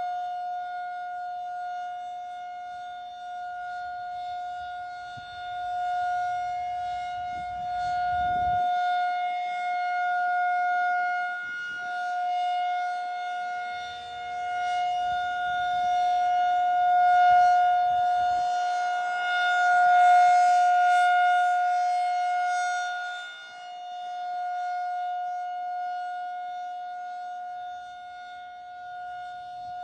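Federal Signal 2001-SRN tornado siren sounding a steady tone at full speed, the pitch holding constant while the loudness swells and fades over and over as the rotating siren head sweeps past.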